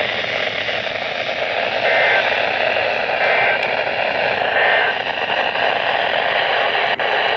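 Steady hiss of static from a weather radio receiver, with a brief dropout about seven seconds in.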